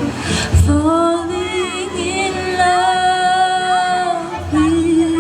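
A solo voice singing a slow ballad to acoustic guitar, gliding into long held notes.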